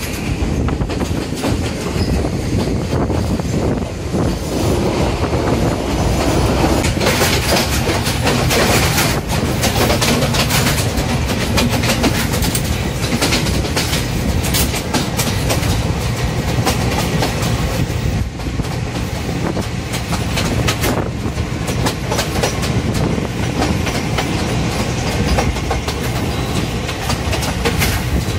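Passenger train heard from an open carriage window: a steady rumble with wheels clacking over rail joints, and the Class M6 diesel locomotive at the head working hard up a steep incline.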